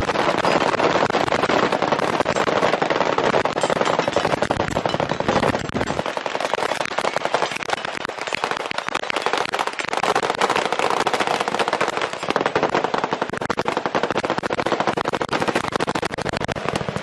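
Many firearms, fully automatic ones among them, firing at once along a firing line: a dense, continuous crackle of shots with no gaps. The deeper thump under the shots drops away about six seconds in.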